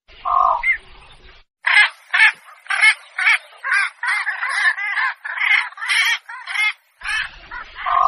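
Blekok heron lure call: a run of harsh, rasping squawks, about two a second, with a short pause after the first call.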